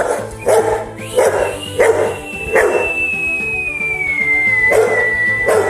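A boxer dog gives about six short, loud barks along with a person whistling one long note that slowly slides down in pitch. Background music plays underneath.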